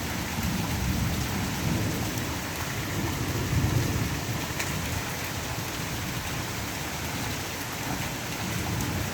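Steady rain, with a low rumble of thunder underneath that swells briefly about three and a half seconds in.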